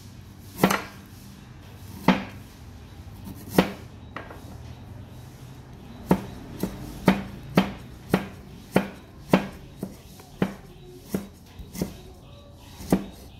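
Cleaver chopping on a thick round wooden chopping block as pieces of pale root are sliced into slivers: sharp single knocks about every second and a half at first, then quicker, about two a second, from around halfway.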